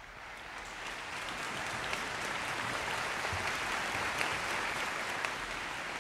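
Audience applause, swelling up over the first second and then holding steady as a dense patter of many hands clapping.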